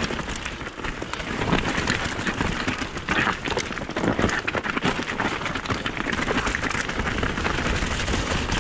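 Mountain bike riding fast downhill over a wet, loose, rocky track: tyres crunching and skittering over stones, with the bike clattering and rattling over the rocks in a dense run of small knocks.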